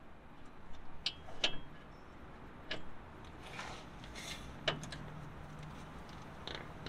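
A handful of sharp metallic clicks and clinks, a second or more apart, with a brief rustle just before the middle: open-end wrenches (16 and 17 mm) working the nylock nuts of a trailer's swing-arm pivot bolt.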